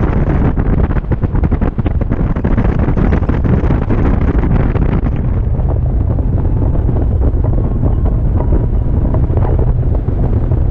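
Rushing airflow buffeting the microphone of a camera mounted on a hang glider in flight: a loud, steady, low rumble with gusty crackles, its upper hiss thinning about five seconds in.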